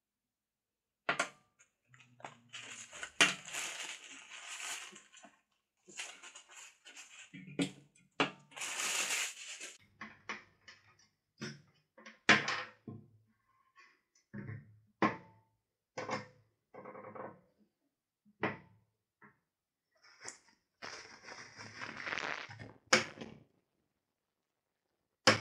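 Plastic bags and bubble wrap crinkling in three longer stretches, between a string of separate sharp knocks as metal wire-feeder parts are handled and set down on a steel workbench.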